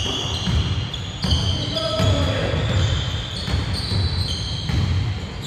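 Basketball bouncing and players' footsteps on a hardwood gym floor: a run of dull, uneven thumps about every half second to a second.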